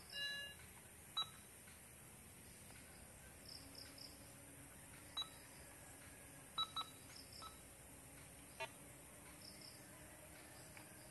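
Metal detector giving short, sharp electronic beeps at irregular moments, about six in all, as its search coil sweeps over the ground: its signal for metal under the coil. Faint crickets chirp behind.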